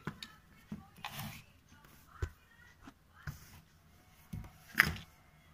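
Handling noises on a tabletop: a series of sharp clicks and knocks with a couple of short brushing rustles as a phone charger's circuit board and its plastic case are moved and set down, the loudest knock near the end.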